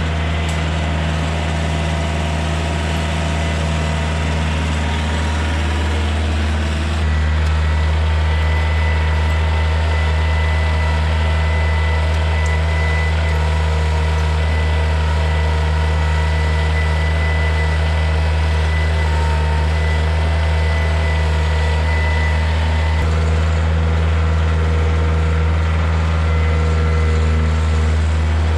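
Kioti compact tractor's diesel engine running steadily as it drives and works its front loader. The engine gets louder about seven seconds in, and a thin high whine sits over it through the middle stretch.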